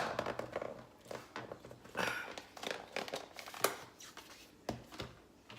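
Handling noises: scattered light clicks and knocks with brief crinkling rustles, the sharpest click about three and a half seconds in.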